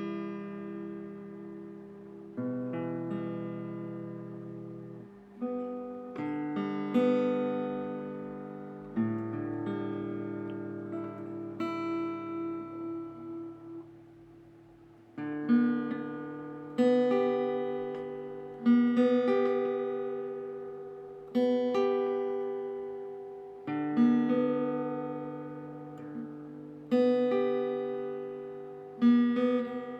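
Background music: an acoustic guitar plucking slow chords, each struck note ringing out and fading before the next.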